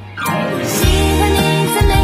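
Mandarin pop love song playing. The music drops briefly at the start, then comes back in with bass and a steady beat.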